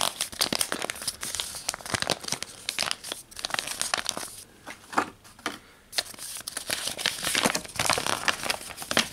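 Paper crinkling and rustling in irregular bursts as a stapled instruction sheet is handled and unfolded, with a brief lull in the middle.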